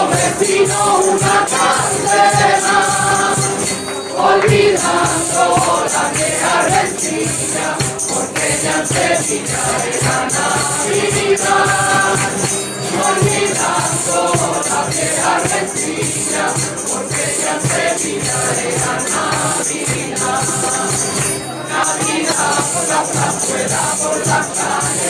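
A group of voices, mostly women, sings a Christmas villancico in chorus to two strummed acoustic guitars, a cajón, a jingling tambourine and hand claps.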